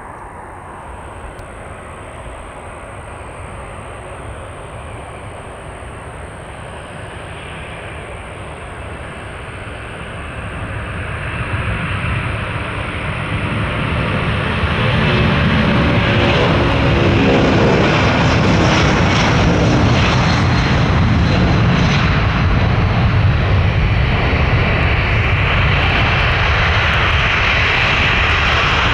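A jet airliner's engines growing steadily louder as the aircraft comes close, then holding loud and steady from about fifteen seconds in, with a slow wavering sweep in the sound as it passes.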